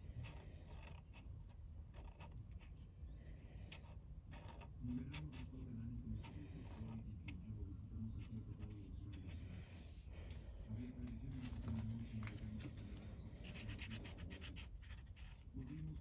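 Felt-tip marker rubbing and scratching across paper in many short, repeated strokes while colouring in.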